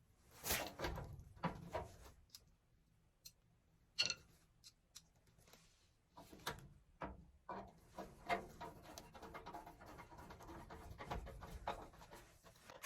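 Scattered light clicks, knocks and rattles from handling tools and furnace parts during reassembly, with a sharper knock about four seconds in and a busier run of small clicks in the second half.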